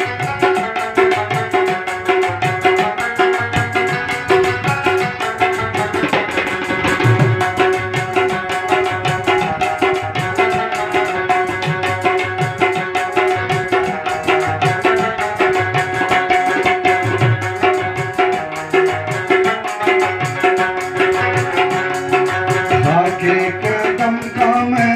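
Instrumental interlude of devotional folk music: a harmonium holds steady notes while a string instrument plays the melody over a steady hand-drum rhythm, with no singing.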